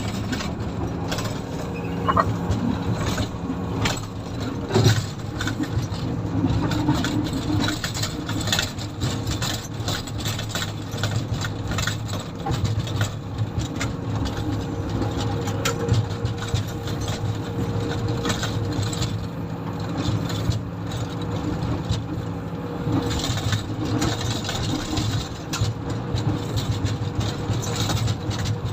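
Komatsu motor grader's diesel engine running steadily while grading, with frequent clatter and rattles over the drone.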